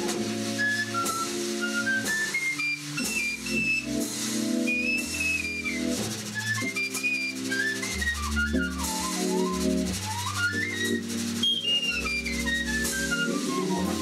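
Small jazz group playing: a Hammond organ holds sustained chords with a walking bass line beneath, a drum kit keeps time on the cymbals, and a high, pure whistled melody runs up and down in quick phrases over the top.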